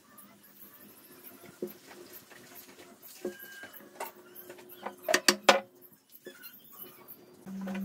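Pieces of wood knocking together as a wooden bracket is fitted and pressed onto a wooden stand by hand: a few scattered sharp knocks, then a quick cluster of louder knocks about five seconds in.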